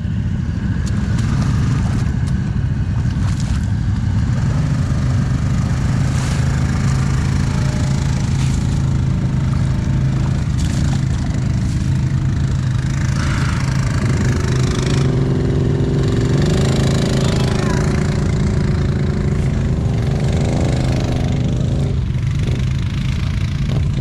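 ATV engine running steadily, its pitch rising a few times in the second half as it is revved.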